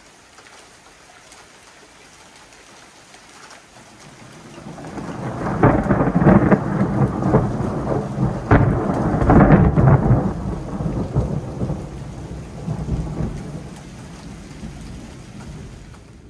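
Thunder over steady rain: a rumble swells about four seconds in, cracks sharply several times, then rolls on and slowly fades.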